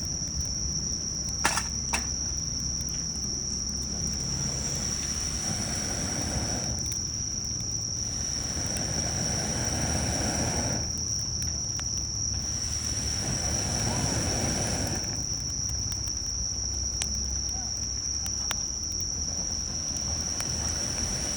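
Insects trilling in one unbroken high-pitched tone, with a few sharp snaps from a campfire, two of them early on. Three swells of rushing noise rise and fade over the middle of the stretch.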